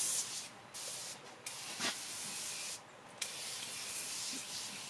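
Aerosol can of foaming cleaner spraying onto a car's engine bay, a loud hiss in four bursts with short pauses between them.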